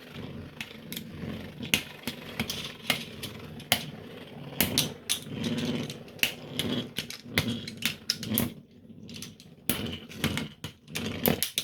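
3D-printed beyblades spinning and clashing in a plastic stadium: a steady low whir broken by repeated sharp clacks at irregular intervals.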